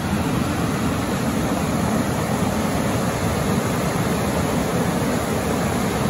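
Muddy floodwater rushing over a flooded low-water bridge, a loud, steady wash of churning rapids.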